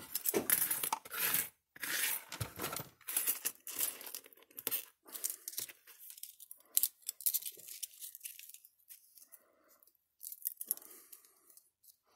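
Scraping, rustling and clicking of thin metal parts handled by hand: the loose core plates and metal clamp of a fence energizer's transformer being fitted back together. The noise is busiest in the first three seconds, then thins to scattered rubs and clicks.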